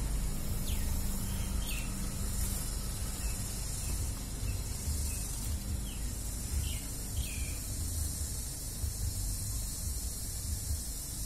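Outdoor ambience: a steady low rumble and hiss, with a few short falling bird chirps, two in the first couple of seconds and two more about seven seconds in.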